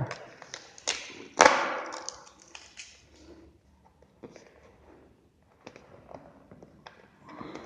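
Cardboard retail phone box being opened by hand: a brief scraping rush of the lid sliding off about one and a half seconds in, then scattered small taps and clicks of the box being handled.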